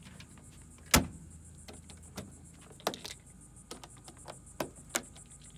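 A few sharp clicks and knocks, one loud one about a second in and smaller ones later, over a faint steady high hiss.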